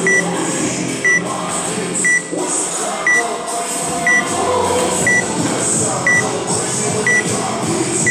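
Workout countdown timer beeping, one short high beep each second, counting down the last seconds before the workout starts.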